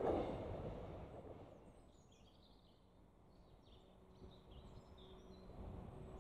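Rumble of a passing freight train dying away over the first two seconds, leaving small birds chirping. A faint steady hum of an approaching diesel locomotive comes in near the end.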